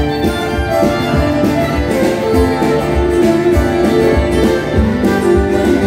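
A live acoustic country band playing an instrumental passage: a fiddle carries the tune over strummed acoustic guitars, with a steady strummed beat.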